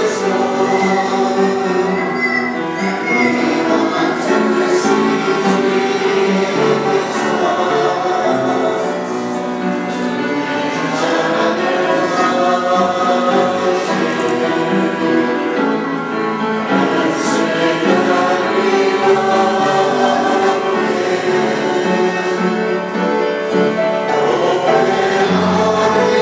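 A choir singing sacred music, many voices together in held chords.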